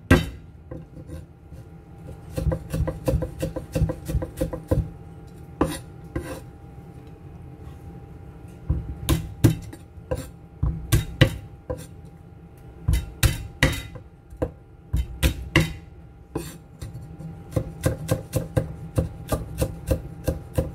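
Chinese cleaver chopping garlic cloves on a wooden cutting board: runs of quick knocks separated by short pauses.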